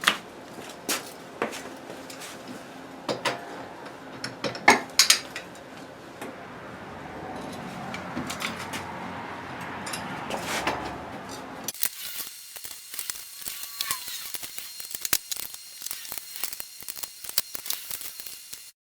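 Scattered metallic clinks and knocks of a socket and beam-type torque wrench being fitted to and turned on a car's lug nuts. About twelve seconds in the background noise changes abruptly, and the clinks continue.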